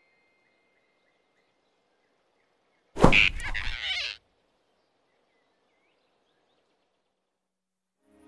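Cartoon sound effect of a sudden grab about three seconds in, lasting about a second, with a brief high, falling squeak from the animated flying squirrel as it is seized. Otherwise near silence.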